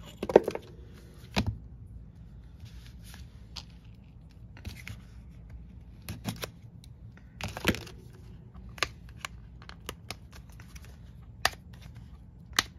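Hands working at the small paperboard box of a Moira blush that won't open: short scrapes and rustles of the cardboard with scattered sharp clicks and taps, loudest near the start and again about eight seconds in.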